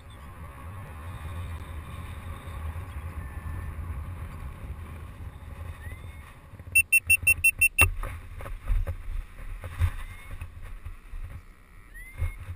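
Wind noise on the microphone during a paraglider's low final glide, then a fast run of about eight high electronic beeps ending in a sharp knock, followed by scattered thumps and rustling as the pilot lands on the grass.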